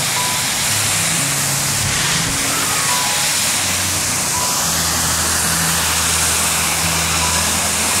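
Steady rushing of a waterfall pouring into a rocky pool, with background music of long held bass notes and short higher notes laid over it.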